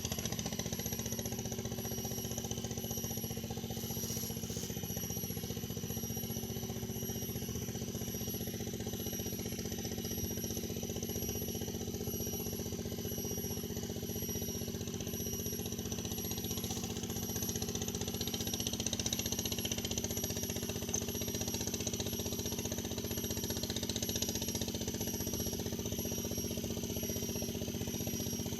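A steady drone like a running engine, unchanging throughout, with a thin high whine over it.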